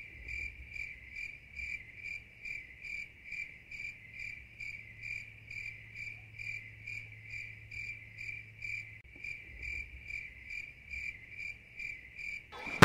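A cricket chirping in a steady, even rhythm, about three short chirps a second, with a faint low hum underneath for a few seconds in the middle.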